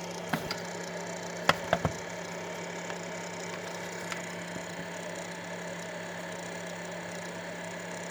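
A few light clicks and knocks in the first two seconds, with a fainter one near the middle, as the 3D printer and its parts are handled, over a steady low hum.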